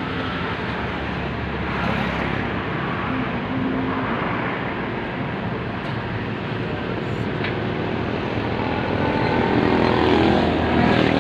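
Motor vehicle engines running close by, steady throughout, with one vehicle growing louder and passing about ten seconds in, its engine pitch sliding down as it goes by.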